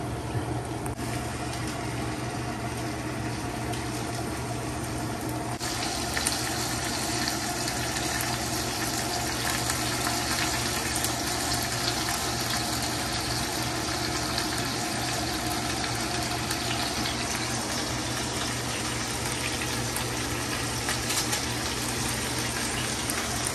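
Chorizo frying in a pan: a steady sizzle that turns brighter and louder about six seconds in.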